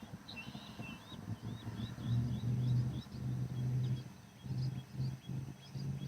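Small birds chirping in quick, repeated high notes, over a low hum that comes and goes in short pulses.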